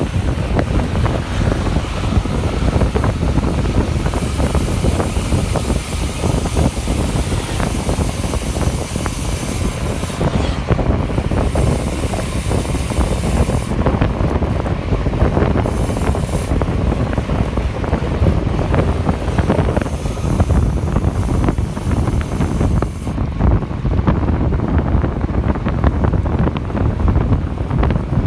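Wind buffeting the microphone during a bicycle ride: a loud, steady low rumble that gusts unevenly, with hiss in the higher range coming and going.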